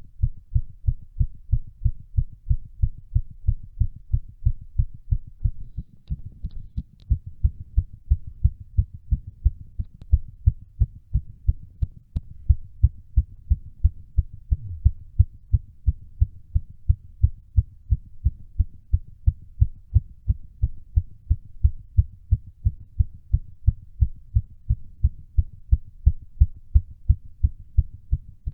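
A human heart beating fast and regular under exercise, a steady train of low thumps.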